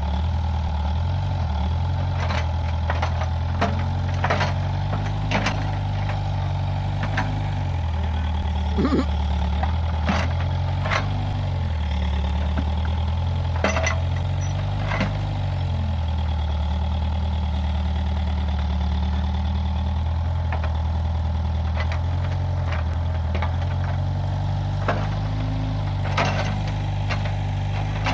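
Case 580G backhoe loader's diesel engine running, its pitch dipping and rising several times as the load changes, with scattered sharp knocks and cracks throughout.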